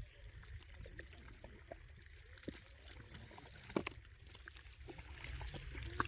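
Faint trickling and splashing of water, with scattered small clicks and knocks; a sharper knock comes just under four seconds in.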